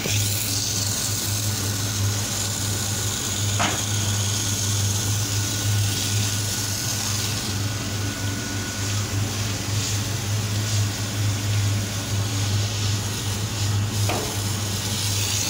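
High-pressure water jet hissing as it sprays across wet paving, over the steady low drone of the drain-jetting machine's engine and pump.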